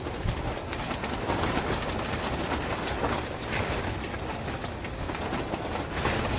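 Strong, gusty wind rushing over the microphone with a steady rumble, broken by many scattered sharp clicks and rattles.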